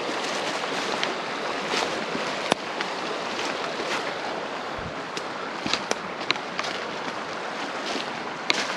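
Steady rush of a rocky creek running over shoals, with scattered sharp snaps and knocks on top.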